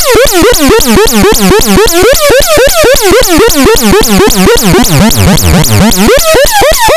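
Homemade optical theremin noise box with two oscillators modulated by an LFO, putting out a loud, fast-repeating warbling chirp, several falling sweeps a second. Its pitch sinks lower about five seconds in, then climbs back up near the end.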